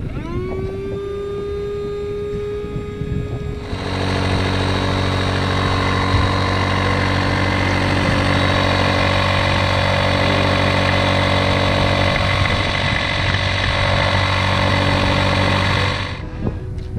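Electric inflation pump starting up: a rising whine that quickly settles into a steady hum. About four seconds in, a much louder, deeper motor drone joins and runs steadily until it cuts off shortly before the end, as the pump fills the inflatable boat's tubes.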